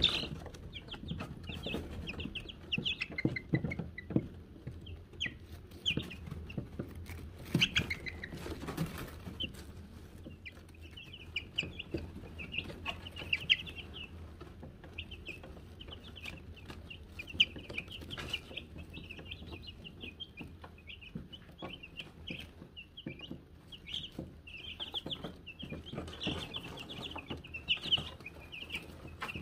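Wyandotte chicks peeping continuously, many short high cheeps overlapping, with scattered sharp taps among them.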